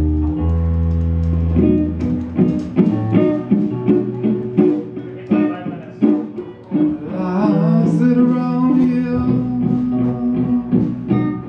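Live blues-rock band playing: electric guitar over bass and drums, a held chord at first, then a run of picked notes from about two seconds in.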